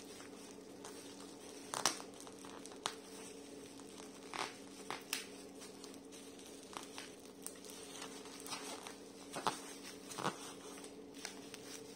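Plastic bubble wrap around a parcel crinkling in scattered sharp crackles as it is handled, over a faint steady hum.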